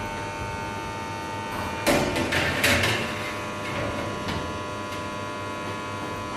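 Steady electrical hum of the running commercial oven and kitchen equipment, with a metal baking tray clattering as it slides onto the oven rack about two to three seconds in.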